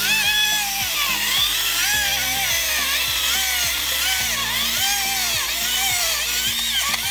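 Ryobi 40V brushless cordless chainsaw cutting deep into a thick log, its motor whine dipping and rising over and over as the chain bogs under load and frees up again. Background music plays under it.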